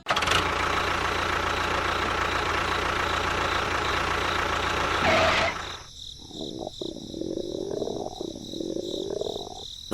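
A small engine or motor running steadily; about five and a half seconds in it drops to a quieter, wavering hum.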